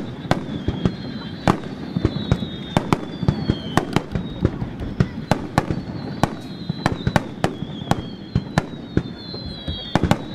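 Wide star mine fireworks finale: a dense, rapid barrage of shells bursting, many sharp cracks a second over a continuous low rumble, with high whistling tones slowly falling in pitch.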